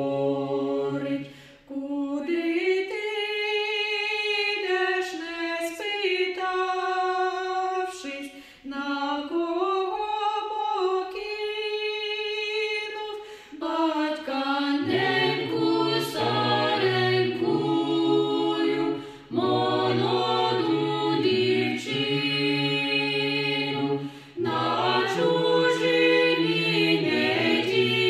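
Small mixed choir singing a cappella in Ukrainian, in Ukrainian folk-choir style, phrase by phrase with short breaks between. The upper voices sing alone at first, and a lower, held part joins about halfway through.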